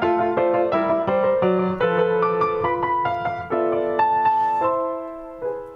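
Piano playing the introduction to a song: a quick run of chords, then slower chords that are held and fade away near the end.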